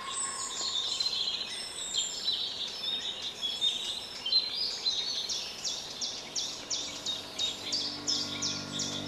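Several songbirds calling and singing, high chirps and trills overlapping. From about halfway through, one bird repeats a short falling note about three times a second.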